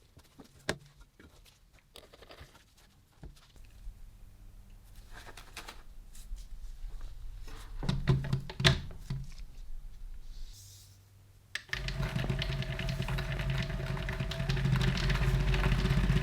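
Handling clicks and knocks on a workbench. About three-quarters of the way in, an electric power tool switches on and runs steadily with a motor hum.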